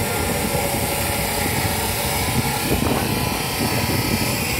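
Shielded metal arc (stick) welding with an LB-52 (E7016) low-hydrogen electrode: the arc crackles and sizzles steadily.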